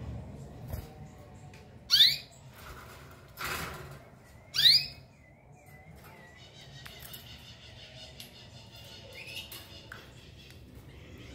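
Canaries calling: two loud, short chirps that rise sharply in pitch, about two and a half seconds apart, with a brief rustle between them and a softer chirp near the end.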